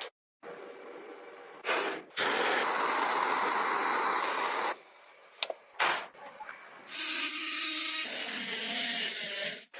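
Workshop power-tool noise in short, abruptly cut clips: a steady rushing tool sound for about two and a half seconds, a few knocks, then a steadier hissing tool sound with a high whine that cuts off just before the end.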